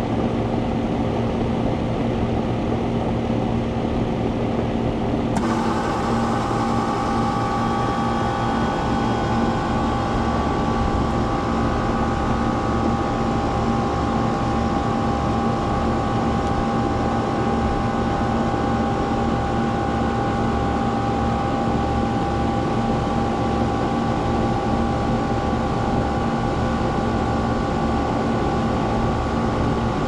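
1992 Rheem Classic X central air conditioner condensing unit starting up and running: a steady hum, with a higher whine joining abruptly about five seconds in, then running on steadily.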